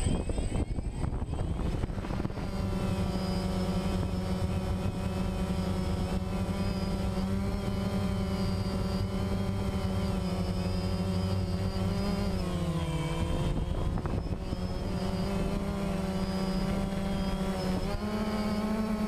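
DJI quadcopter's electric motors and propellers spinning up over the first couple of seconds as it lifts off, then a steady buzzing drone heard up close from on board as it climbs. The pitch dips for about a second around twelve seconds in and rises again near the end as the throttle changes.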